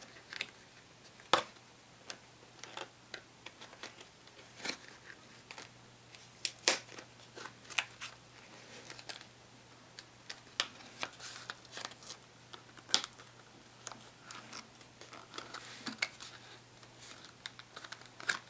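Clear plastic lure packaging being handled and pried open, giving irregular crinkles, clicks and sharp snaps, with a couple of louder snaps about a second in and near the middle.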